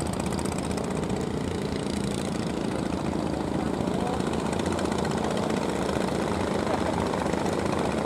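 Inboard engines of several wooden fishing boats running steadily as they motor in through the river mouth, a continuous drone over a haze of water and wind noise.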